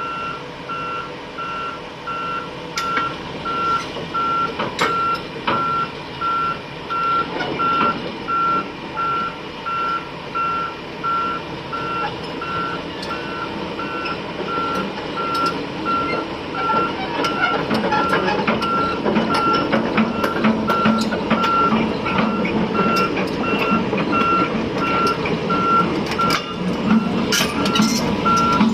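Volvo excavator's travel alarm beeping steadily, about three beeps every two seconds, over the machine's engine and hydraulics, which grow louder about halfway through, with occasional sharp metallic clanks.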